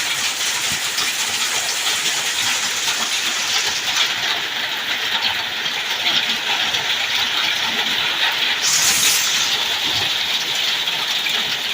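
Heavy hail coming down hard: a dense, steady hiss and patter of many hailstones striking.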